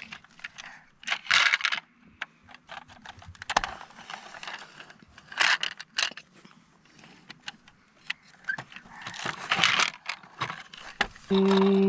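Small hard plastic toy pieces rattling and clattering in a toy skid-steer loader's bucket and dump truck bed, with plastic scraping and knocking on a wooden table, in irregular bursts. Near the end a steady humming tone begins.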